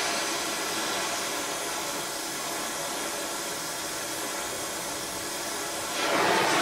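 Gas torch flame hissing steadily as it heats a steel crank web so the web expands for a shrink fit onto the shaft; the hiss gets louder about six seconds in.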